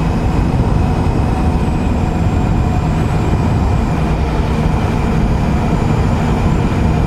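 2007 Triumph Sprint ST1050's three-cylinder engine running at a steady cruise, its note holding even with no revving or gear changes.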